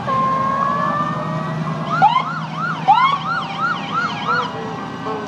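Parade fire truck sirens: a long siren tone slowly rising for about two seconds, then a fast electronic yelp at about three sweeps a second, broken twice by a sharp rising whoop. A steady truck engine rumble runs underneath.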